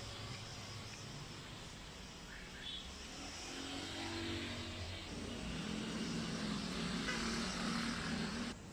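Street traffic: a motor vehicle's engine hum over a steady wash of road noise, growing louder in the second half before cutting off abruptly near the end.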